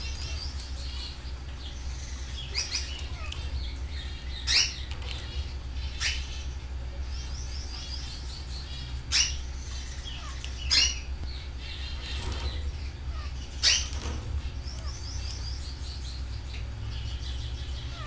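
Canaries singing: fast, high trills repeat throughout, and about six short, sharp, louder calls cut in, over a steady low hum.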